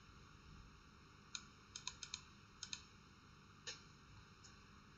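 Faint clicks of a computer keyboard: about nine light keystrokes, singly and in quick pairs, with short pauses between them.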